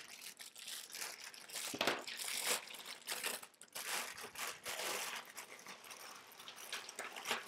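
Clear plastic freezer bag crinkling and rustling in irregular crackles as it is pulled open and a hand reaches in among the salted ice cubes inside.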